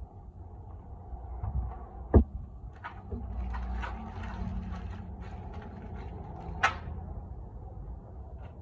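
Handling and clatter noises: scattered light clicks, a sharp knock about two seconds in and a clack near seven seconds, over a low steady rumble.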